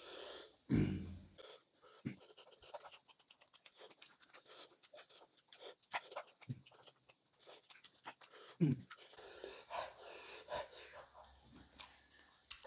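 Close-miked eating sounds: wet chewing and lip smacks in a rapid, irregular run of short clicks, with a few louder breaths between mouthfuls.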